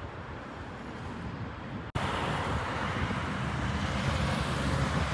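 Road traffic noise from cars driving past on a city street. A quieter stretch of outdoor noise gives way abruptly to louder traffic about two seconds in.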